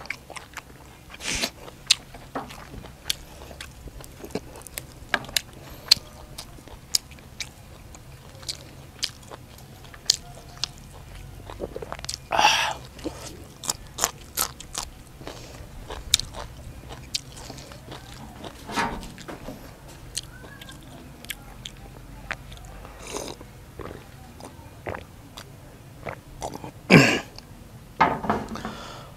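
Close-miked eating: a person biting and chewing papaya salad and crunchy raw long beans, with many sharp crunching and mouth clicks. A few louder noisy bursts stand out about halfway through and near the end.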